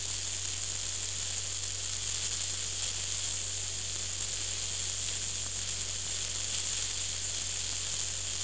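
Steady high-pitched hiss with a low, even hum underneath: the travelling noise of a vehicle ride on an open road, recorded on a small camera.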